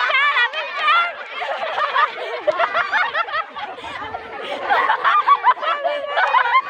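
A group of people laughing and calling out over one another, with snickering laughter mixed into the chatter.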